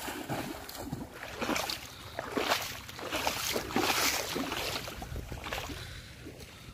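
Water splashing and sloshing as someone wades and runs through shallow river water, in irregular splashes that are thickest in the middle and fade near the end.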